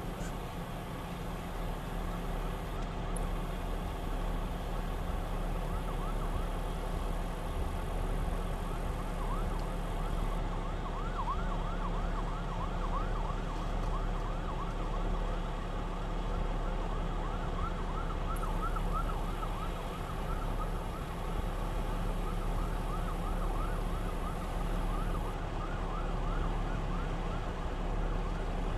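Fire-apparatus sirens yelping, a quick up-and-down sweep several times a second, starting about a third of the way in and fading out near the end, over a steady low rumble.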